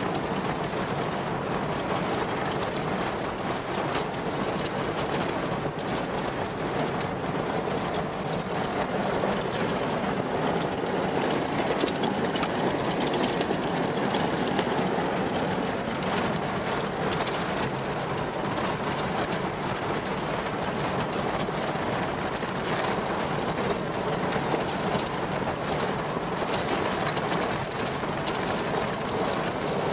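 Vehicle driving on a rough, stony dirt track, heard from inside the cab: steady road noise with a continuous fine rattle from the vehicle jolting over the surface.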